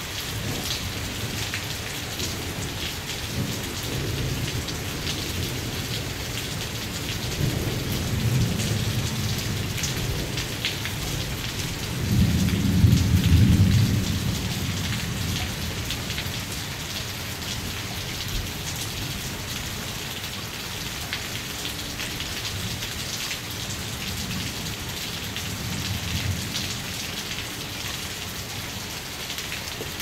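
Steady rain falling, with thunder rumbling low several times; the loudest roll comes about midway through, and fainter ones come before and after it.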